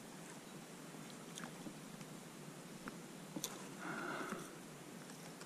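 Quiet handling sounds of spinning tackle in a boat: a few light clicks over a faint hiss, and a brief rustling whirr about four seconds in as the lure is reeled up out of the water.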